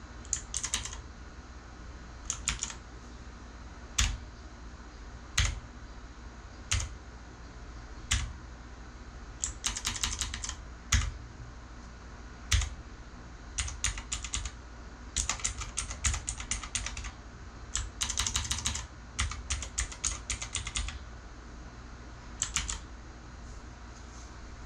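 Redragon Kumara K552-2 mechanical keyboard with clicky switches being typed on: single keystrokes about a second and a half apart, each with a low thud, then runs of quick clicking typing, and a last short run near the end.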